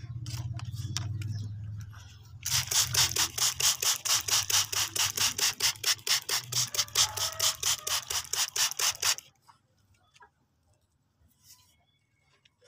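Hand spray bottle squirting water in quick repeated pulses, about five squirts a second, starting a couple of seconds in and stopping after some six seconds.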